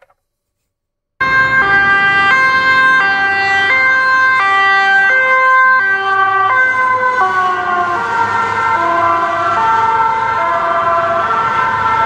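Real ambulance siren in two-tone mode, loud and switching between a high and a low note about every 0.7 s, starting about a second in. From about halfway the pitch slides steadily lower as the ambulance passes, with road noise rising under it, and the sound cuts off suddenly at the end.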